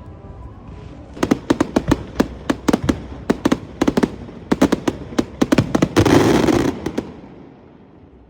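Aerial firework shells bursting in a rapid run of sharp bangs, about two or three a second. About six seconds in comes a dense crackling hiss, and then the sound fades away.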